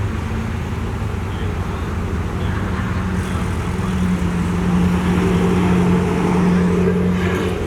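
Car driving: steady engine and road noise, with an even engine drone that comes up about halfway through and drops away just before the end.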